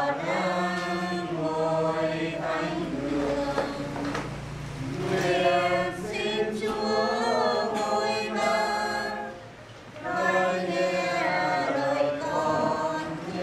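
A choir singing a hymn in held phrases, with short breaks between them.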